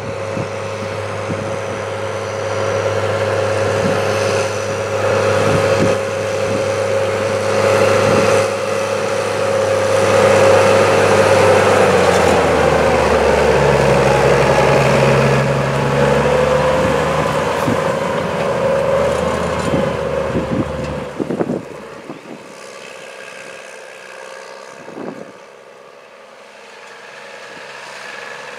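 New Holland T7060 tractor's six-cylinder diesel engine running steadily while it pulls a slurry tanker across a field. It grows louder as the tractor comes close, and its note drops a little about halfway through. About three-quarters of the way through it falls away quickly to a much quieter hum.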